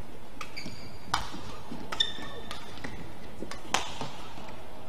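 Badminton rackets hitting a shuttlecock in a rally: three sharp smacks spread over a few seconds, with short high squeaks of court shoes between them over a steady arena hum.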